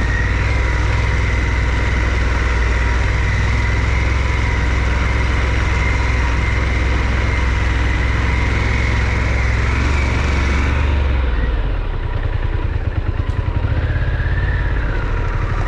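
Harley-Davidson Pan America's Revolution Max 1250 V-twin engine running steadily on the move, with wind and road hiss. About eleven seconds in, the engine note drops and the hiss fades.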